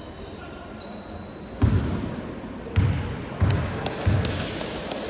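A basketball bounced on a wooden sports-hall floor, four firm bounces at uneven intervals starting about one and a half seconds in, each echoing in the hall. This is a player dribbling at the free-throw line before the shot.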